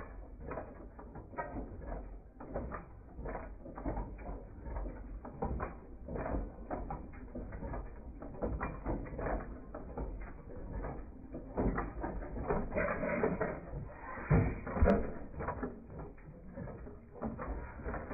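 Machinery clattering and clicking irregularly, over a low rumble. A louder knock comes about fifteen seconds in.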